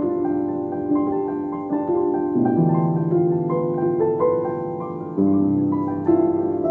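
Background music: a piano playing sustained chords and melody notes, each struck and slowly fading.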